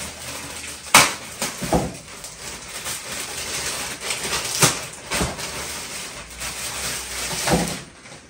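A clear plastic bag crinkling and rustling as a garment is pulled out of it, with several sharp crackles, the loudest about a second in.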